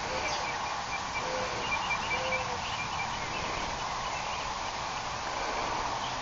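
Steady outdoor background hiss, with a quick run of short, high chirps starting about a second in and lasting a couple of seconds.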